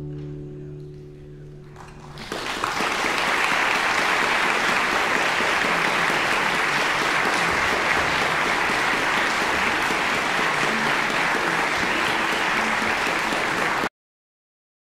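The guitar orchestra's last chord rings and dies away, then the audience breaks into applause about two seconds in, steady and full until it cuts off abruptly near the end.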